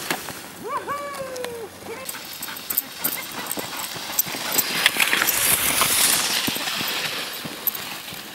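A dog whines once, high and sliding in pitch, about a second in. Then comes crunching and rushing noise of feet and sled runners on packed snow.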